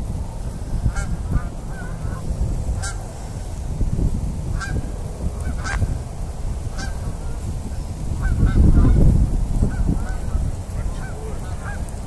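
A flock of geese flying overhead, honking in short calls that repeat every second or so. A low rumbling noise runs beneath them and swells about nine seconds in.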